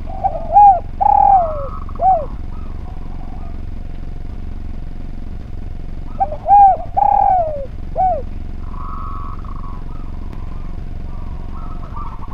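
Spotted dove (derkuku) cooing twice: each phrase is a few short arched notes, a longer coo that falls in pitch, and a short closing note, the two phrases about six seconds apart.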